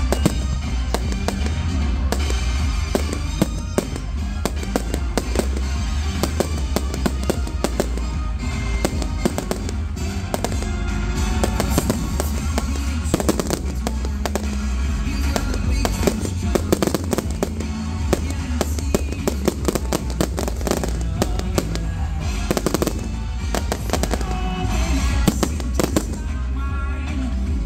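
Fireworks going off in rapid succession, bangs and crackles packed closely together, over loud music with a heavy bass.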